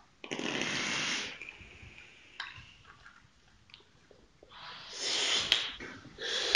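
People vaping e-cigarettes: breathy rushes of air as vapour is drawn in and blown out, one just after the start and a longer one building near the end, with a few faint clicks in between.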